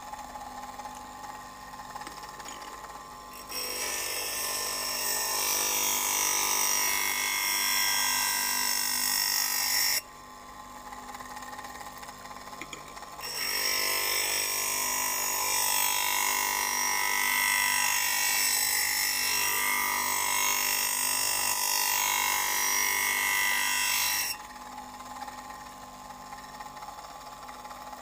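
An electric motor spinning a grinding wheel with a steady whine, while a TCT (tungsten-carbide-tipped) planer blade is pressed against the side of the wheel for two long spells of harsh grinding: the first begins about three and a half seconds in and lasts some six seconds, the second begins about thirteen seconds in and lasts about eleven.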